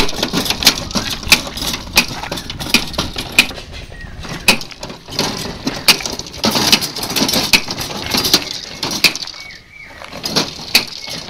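GT Shakti rolling seed dibbler (token planter) being pushed over gravelly soil. Its spiked jaws crunch into the ground as the clear plastic seed drum turns, giving a regular click-and-crunch about every two-thirds of a second.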